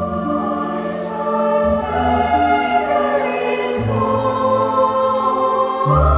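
Choir singing slow, held chords, the harmony shifting about four seconds in and again just before the end.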